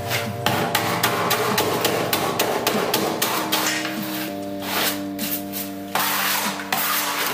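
Background music with held chords over repeated sharp knocks and scrapes of a metal scraper chipping old tile adhesive off a bathroom wall.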